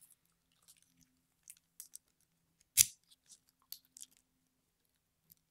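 Small metallic clicks and taps from handling a pin-tumbler lock and its key, with one sharp click a little before the middle.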